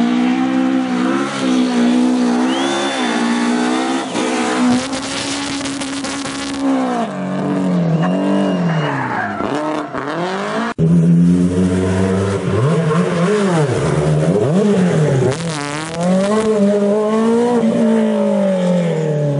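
Rally car engines revving hard, pitch climbing and falling through gear changes and lifts off the throttle, with brief tyre squeal. An abrupt cut about eleven seconds in switches to another car running the same way.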